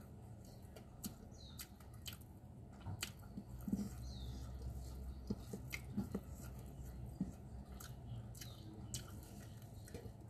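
Faint chewing of rice and salted fish eaten by hand, with scattered small irregular clicks.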